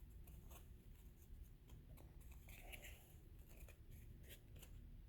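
Near silence with faint, irregular ticks and rustles of baseball trading cards being handled and flipped through.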